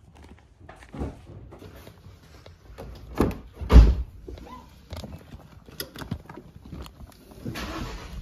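Bumps and knocks from a car door and someone climbing into a car, with a heavy low thump a little under four seconds in. A short hiss near the end.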